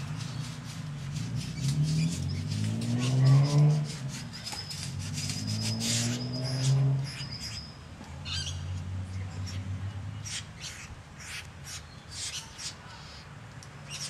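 Great bowerbird calling at its bower: a rapid, rattling series of harsh notes, with a short whistle near the middle. A low drone swells twice in the first half and is the loudest sound there.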